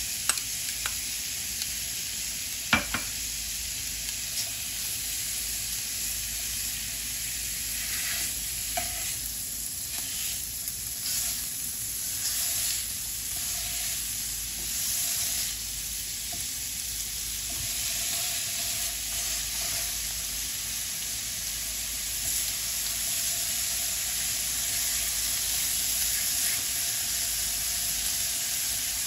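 Pork ribs and diced bacon sizzling steadily in a nonstick frying pan as they sear. A few sharp clicks sound in the first seconds, the loudest about three seconds in.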